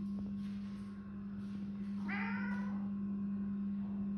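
A domestic cat meows once, a short call that rises and then falls in pitch, about halfway through. A steady low hum runs underneath.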